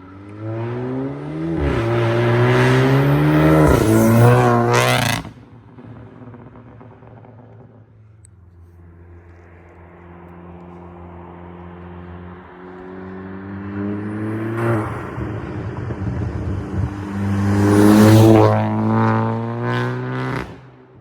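Big-turbo VW Golf Mk7 engine revving hard, its pitch climbing and then cut off sharply about five seconds in, then settling lower. It climbs again to a second peak, blips a few times and cuts off sharply near the end, with the blow-off valve venting and exhaust crackles on each lift-off.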